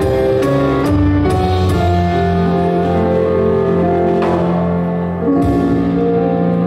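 Live band playing an instrumental introduction on a Roland RD-300NX stage piano, with long held notes over a sustained low bass line.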